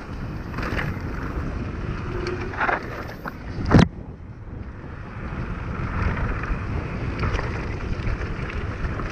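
Mountain bike riding fast down a dirt trail: knobby tyres rolling over packed dirt and loose stones, with wind rushing over the microphone. A single sharp knock from the bike about four seconds in.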